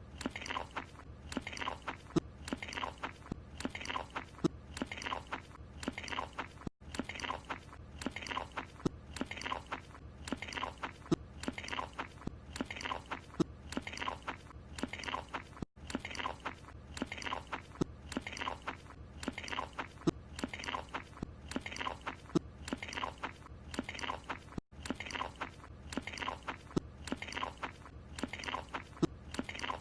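Cartoon chewing: Carl Wheezer munching a croissant with wet, crunchy chomps, about two a second. The clip is looped, and the sound cuts out for an instant each time the loop restarts, roughly every nine seconds.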